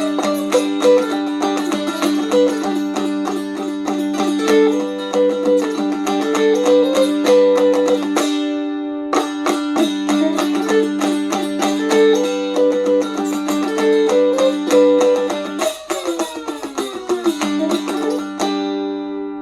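Dulcimer playing an old-time tune instrumentally, a moving melody over steady drone notes with quick picking. About eight seconds in the picking briefly drops out while the drones sound on; near the end the pitch slides down, the tune closes and the last notes are left ringing and fading.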